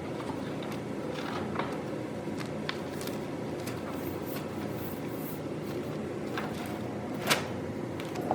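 Scattered light clicks and rustles from booth graphics and their plastic covers being handled, over a steady background hum. One sharper click comes about seven seconds in.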